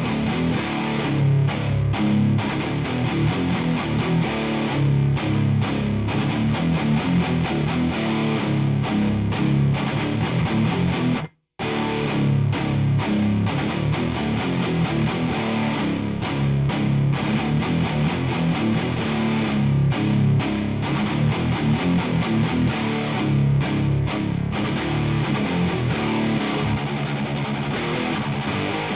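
Heavily distorted electric guitar playing chunky hardcore riffs through a 100-watt Marshall head. The playing cuts out abruptly for a split second a little before halfway through, then carries on.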